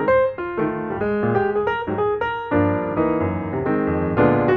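Background piano music: a steady stream of notes over sustained low chords.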